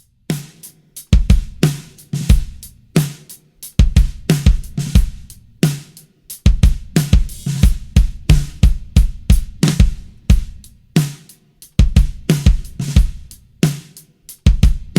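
Acoustic drum kit played in a steady groove, the pedal-struck bass drum thumping under snare, tom and cymbal hits. It starts after a moment of silence.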